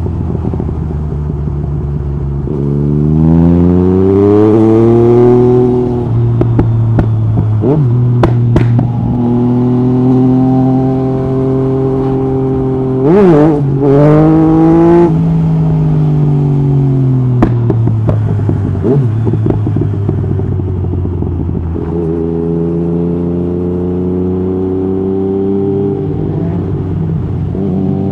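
Yamaha MT-09 SP's inline three-cylinder engine through an Akrapovic Racing-Line exhaust with the dB killer out. It pulls up through the gears: the pitch rises and then drops sharply at each quickshifter upshift. About midway it eases off, with a quick blip of revs and a few sharp cracks, then accelerates again near the end.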